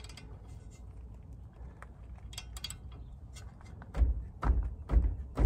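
Socket ratchet working a 19 mm brake caliper bolt: a few light clicks, then from about four seconds in a run of heavy knocks roughly twice a second as the handle is worked against the bolt.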